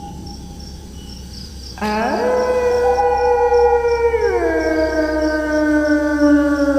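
Wolf howling: one long howl starts suddenly about two seconds in, sweeps up at first, holds, then drops lower partway through and holds again. Crickets chirp steadily behind it.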